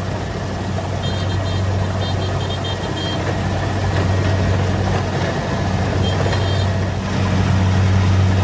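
Rice combine harvester running steadily at work, with a constant engine hum and the mechanical noise of cutting and threshing. A few short high-pitched tones come through in two brief clusters, about a second in and again around six seconds.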